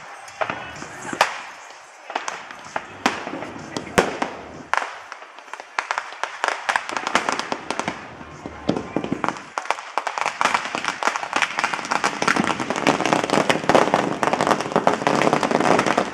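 Fireworks and firecrackers going off: scattered sharp bangs, then from about ten seconds in a dense, rapid crackle of many cracks at once, like a string of firecrackers.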